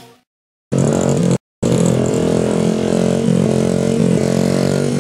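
Honda CRF50 pit bike's small four-stroke single-cylinder engine running at fairly steady revs, its pitch wavering slightly up and down. It cuts in about a second in after a brief silence and drops out for a moment shortly after.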